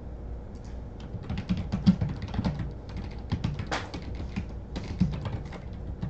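Typing on a computer keyboard: quick, irregular keystrokes clicking throughout.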